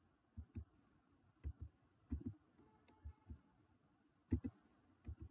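Computer keyboard being typed on: about a dozen faint, dull keystrokes at an irregular pace, often in pairs.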